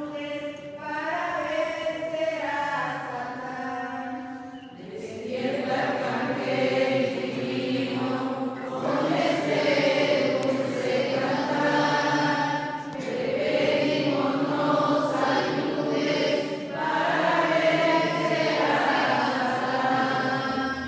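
A group of voices singing a hymn together in church, in long held phrases that grow louder about five seconds in.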